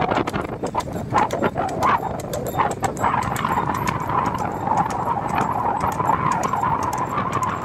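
A bull's hooves clip-clop on asphalt as it trots pulling a cart. A steady high whine joins about three seconds in and runs on under the hoofbeats.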